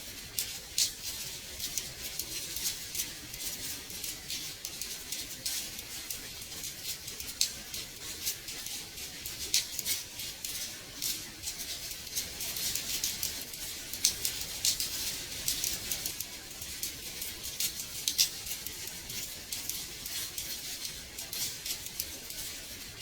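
Gentle rain tapping on window glass: a steady high hiss with many small, irregular drop ticks.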